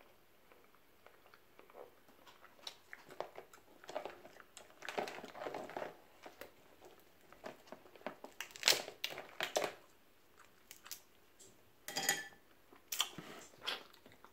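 Crab leg shells being cracked and snapped apart by hand, with crunching and chewing as the meat is eaten. The sound is a run of irregular, crisp cracks and crunches.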